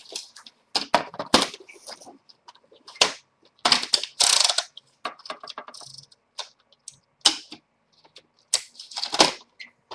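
Sheets of decorative paper and craft tools being handled on a table: irregular rustles and sharp clicks and taps, with the longest rustle about four seconds in.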